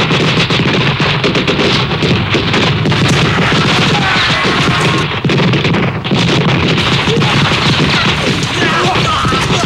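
Dense, continuous rifle fire from a battle scene, with many shots overlapping into a fusillade and booms mixed in. It has a dip about five and six seconds in.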